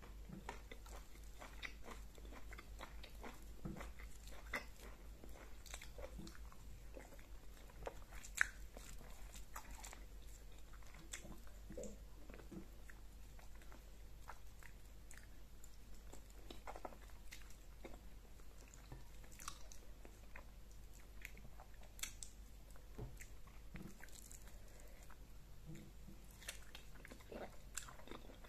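A person chewing and smacking their lips while eating fufu and egusi soup, heard close up as faint, irregular mouth clicks and smacks, with one sharper click about eight seconds in.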